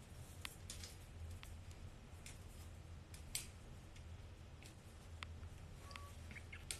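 Faint handling noise of a smartphone held in the hand: about ten sharp, scattered clicks and taps over a low, steady hum.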